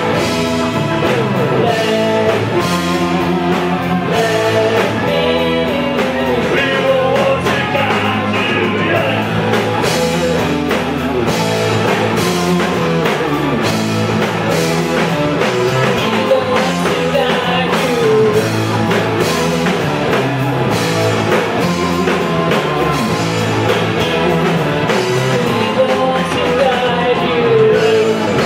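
Live doom-metal band playing: electric guitar and drum kit, with a woman singing over them.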